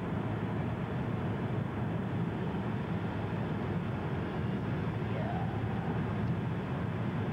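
Steady rumble of road and engine noise heard inside a moving car's cabin.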